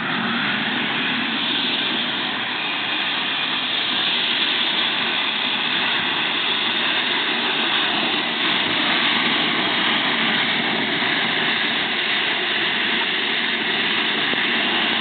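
Model gas turbine engine of an RC jet running steadily at low power after landing: an even jet hiss with a faint steady whine.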